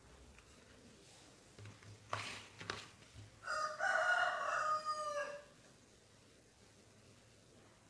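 A rooster crows once, a single call of about two seconds that sags slightly in pitch at the end. A few brief rustles and knocks of boxes being handled come just before it.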